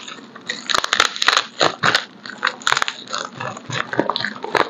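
Packaging crinkling and crackling in quick, irregular crackles as a package that is hard to open is pulled and worked open.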